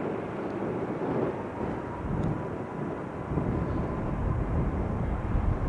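Boeing 747 freighter's four jet engines heard rolling on the runway: a steady, deep rumble with a faint thin whine over it, the low rumble growing stronger a couple of seconds in.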